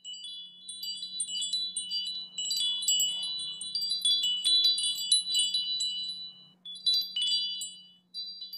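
Wind chimes tinkling, many high bell-like notes struck irregularly and ringing over one another, thinning out briefly near the end, over a faint steady low hum.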